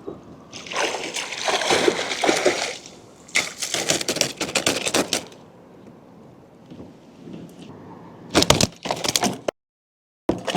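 Water splashing and sloshing in three loud bouts, as a large dusky flathead thrashes at the side of the kayak while it is being landed.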